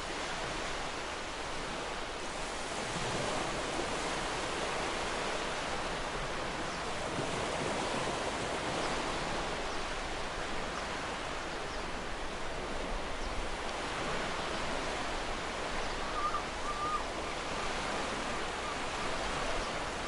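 Gentle ocean waves washing onto the shore: a steady surf hiss that swells and eases as the waves come in. A brief faint bird chirp about sixteen seconds in.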